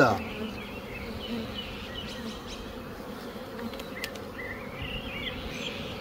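Honeybees buzzing steadily on and around a frame lifted out of an open hive.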